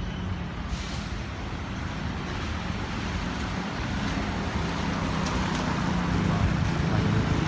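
Road vehicle running, a steady low engine hum with road noise, growing gradually louder.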